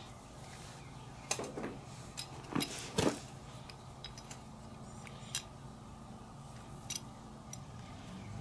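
Light metal clicks and clinks as a new small-engine carburetor is handled and turned over in the hands, with a few sharper clicks in the first three seconds and a couple more later. A faint low steady hum runs underneath.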